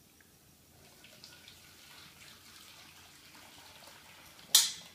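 Herbal extract being poured through a sieve into another container: a faint trickle of liquid. About four and a half seconds in there is a single short, sharp clack, the loudest sound.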